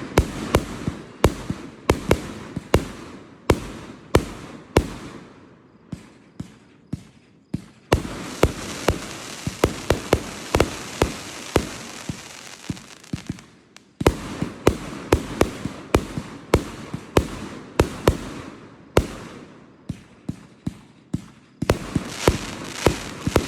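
Fireworks display: aerial shells bursting one after another in rapid, uneven succession as sharp bangs, with stretches of continuous crackling hiss between them, the densest from about 8 to 14 seconds in and again near the end.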